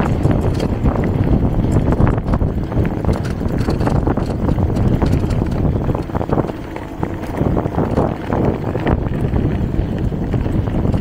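Wind buffeting the microphone over a bicycle riding a bumpy dirt track, with many quick knocks and rattles from the frame and tyres jolting over the rough ground.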